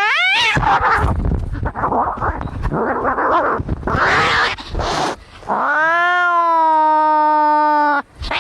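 Angry cats fighting: a short rising yowl, then a few seconds of harsh, noisy hissing and spitting, then one long, steady caterwaul that cuts off abruptly near the end.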